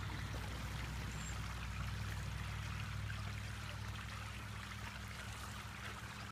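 Steady low hum with an even hiss over it, with no sharp strikes or shots.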